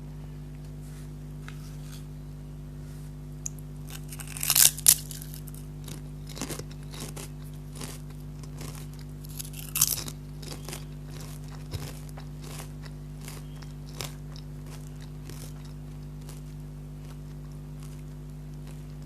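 Lay's potato chips being bitten and chewed close to the microphone: two loud crunching bites, about four and a half and ten seconds in, each followed by softer chewing crunches, over a steady low hum.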